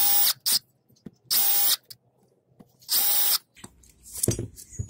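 Cordless drill with a twist bit run in three short bursts, each about half a second with a steady motor whine, boring holes into a wooden board. A few softer knocks follow near the end.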